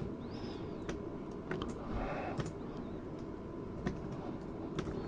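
Keys being typed on a computer keyboard, entering a password: a handful of separate clicks at irregular intervals over low room noise.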